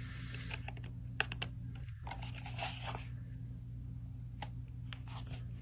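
Craft knife blade picking and scraping at a small cardboard box and its plastic hang tab to cut it open: irregular sharp ticks and clicks with a brief scratching stretch about halfway through.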